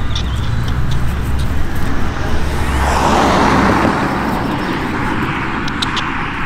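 A car passing by on the road: its tyre and engine noise swells to its loudest about three seconds in and then fades, over a steady low traffic rumble.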